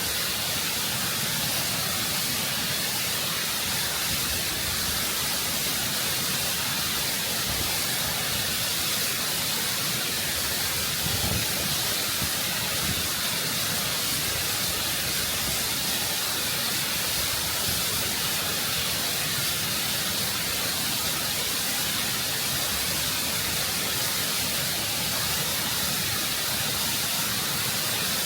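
Waterfall close up: water rushing and cascading over rock in a steady, full hiss with no breaks.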